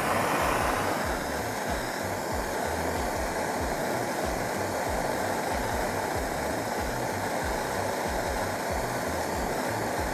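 Handheld gas torch burning with a steady blue flame: an even hiss with a faint steady whistle in it.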